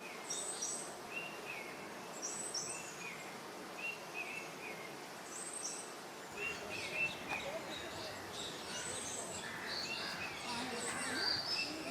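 Small birds chirping: a short high two-part call repeats every second or so, and from about halfway a busier chatter of several birds joins in, over steady background noise.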